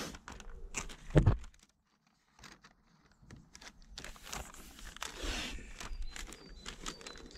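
Masking tape and masking paper rustling and crinkling as they are handled and pressed onto a fence panel, with a single low thump about a second in.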